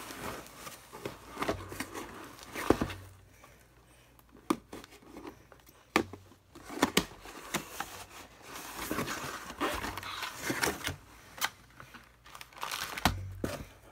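Cardboard box and plastic packaging being handled during unpacking: irregular crinkling and rustling with a few sharp knocks, and a quieter lull a few seconds in.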